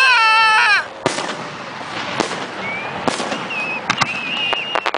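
Homemade aerial fireworks: a loud whistle of several tones together glides down and cuts off about a second in. It is followed by sharp bangs of bursting shells, a few fainter short whistles, and a rapid run of crackles near the end.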